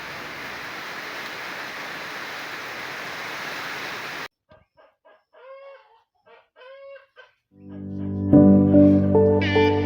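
A steady hiss that cuts off suddenly about four seconds in, followed by a chicken giving a series of short calls. Guitar music fades in near the end.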